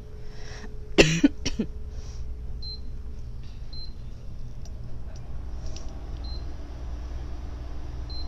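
Induction cooktop's touch controls beeping as the heat is set: four short high beeps, irregularly a second or two apart. A sharp knock comes about a second in, and a steady low hum runs underneath.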